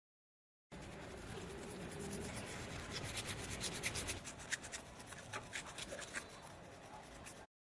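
Rubbing and scraping against a surface in many quick short strokes, starting just under a second in and cutting off abruptly near the end.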